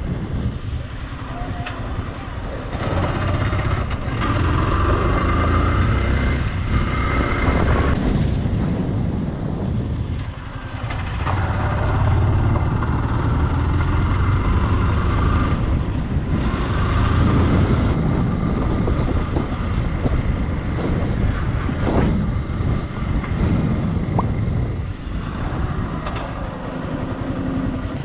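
Motorcycle engine running under way, its note rising and falling with the throttle over steady wind and road noise. The level dips briefly twice.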